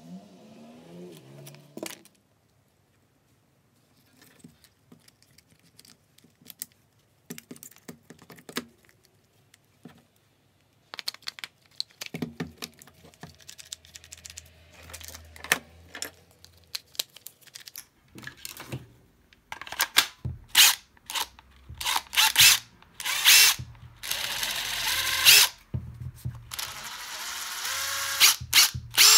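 Light clicks and knocks of plastic parts being handled and fitted. From about two-thirds in, a Makita 40Vmax TD001G impact driver runs free in repeated short trigger bursts, its motor speed rising and falling, with two longer runs near the end.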